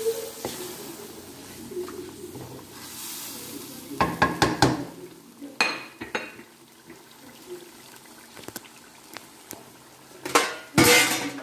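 Spatula knocking and scraping against an aluminium karahi while a masala is stirred: a quick run of clanks about four seconds in, a couple more near six seconds, and a louder clatter near the end.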